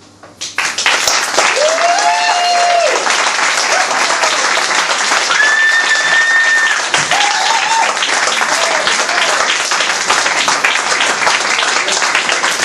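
Audience applause breaking out about half a second in and going on steadily, with a few voices calling out over the clapping.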